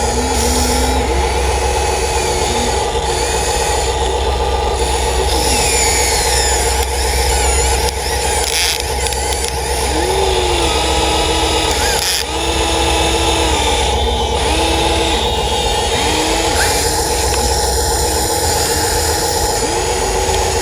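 Excavator running steadily with its hydraulics working. A tone steps up, holds and drops back every second or two as the machine takes and releases load.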